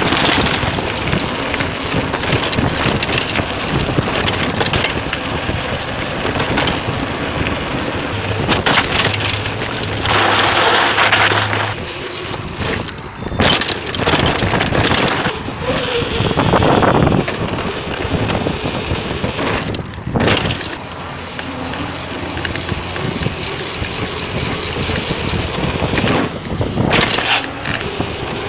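Mountain bike being ridden over dirt and pavement, heard from a camera mounted on the bike: steady tyre and wind noise, with rattles and knocks from bumps.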